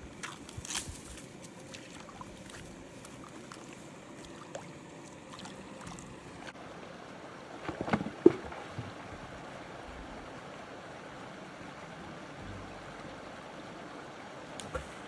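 Shallow mountain creek running, a steady wash of water, with a few small clicks in the first second or so. About eight seconds in there is a brief, louder splash as hands dip into the icy water at the bank.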